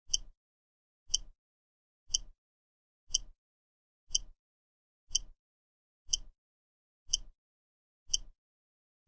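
Countdown timer ticking: a short, sharp click once a second, nine in a row, marking off the final seconds of the countdown.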